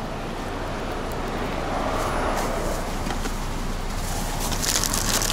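Steady outdoor road-traffic and wind noise, with a vehicle passing about two seconds in. Near the end, a loud rustling and crinkling of plastic food wrappers and packaging being pulled out of a car's door pocket.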